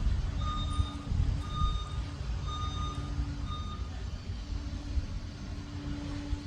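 Liebherr PR 746 crawler dozer reversing: its backup alarm beeps four times, about once a second, then stops a little past halfway, over the steady low running of the diesel engine.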